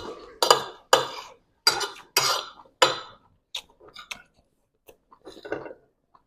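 Eating utensils clinking against a dish during a meal: five sharp strikes in the first three seconds, then a few fainter taps and scrapes.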